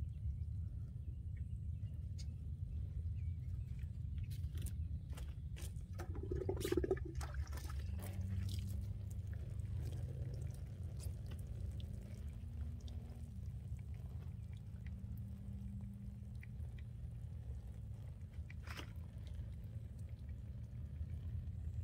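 Water trickling from a small metal watering can onto soil, over a steady low rumble, with a run of clicks and taps around the middle.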